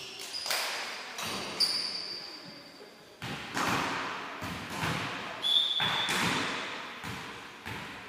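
A volleyball being struck about five times during a rally, each hit echoing around a large sports hall. Short high squeaks of shoes on the court floor come in between the hits.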